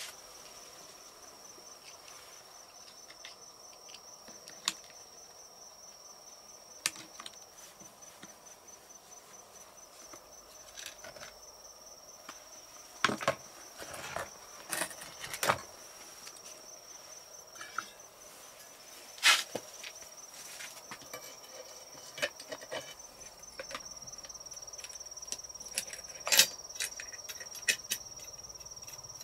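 Insect, likely cricket, trilling: a steady, rapidly pulsing high-pitched sound. Scattered sharp clicks and knocks sound over it, a cluster about halfway through and the loudest about two-thirds and nine-tenths of the way in.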